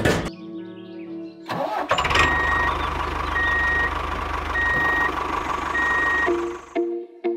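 A small tractor engine starts about a second and a half in and runs steadily, then stops near the end. Four evenly spaced beeps like a reversing alarm sound over it. There is a sharp knock at the very start, and music comes in as the engine stops.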